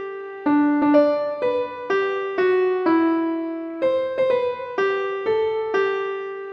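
A Nokia 3310 ringtone melody in a piano-like electronic tone, one note at a time at about two notes a second. The tune ends with its last note fading out near the end.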